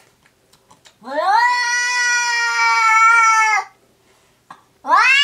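Domestic cat caterwauling: about a second in comes a long, loud yowl that rises in pitch and then holds for over two seconds. A second yowl starts near the end. These are cats calling back and forth, one answering another cat's intermittent calls.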